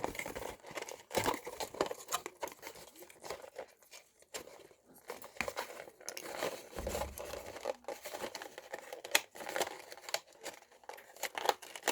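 Plastic and cardboard toy packaging being crinkled and torn by hand as the figure's plastic cage is worked open, a run of irregular crackles and snaps.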